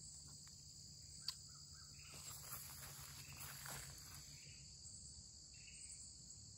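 Faint, steady high-pitched drone of insects in a summer garden, with soft rustling of vines and weeds underfoot a couple of seconds in and a single light click about a second in.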